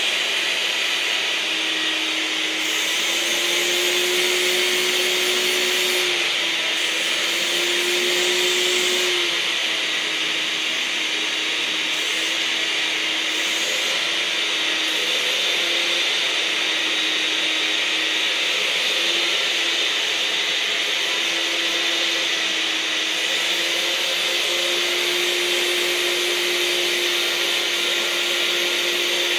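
A vacuum cleaner running continuously as it is used on a dog's coat. Its steady motor whine steps up in pitch and back down several times.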